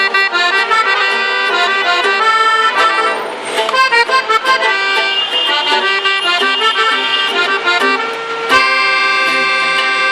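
Accordion playing a fast melodic run over a band, as in a norteño instrumental intro, with a sharp percussive hit near the end.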